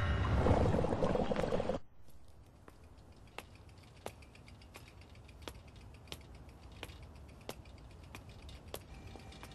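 A loud transition sound, steady tones over a noisy wash, cuts off abruptly about two seconds in. Then soft, evenly spaced ticks, about one every 0.7 seconds at a walking pace, come from a bicycle being walked along a quiet street, over a faint steady hum.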